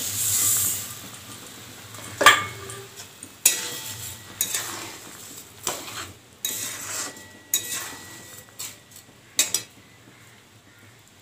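Sugar poured from a steel bowl into the pan with a brief hiss. Then a metal spatula stirs and scrapes in an aluminium karahi of simmering hog plums, knocking against the pan in about ten irregular clinks.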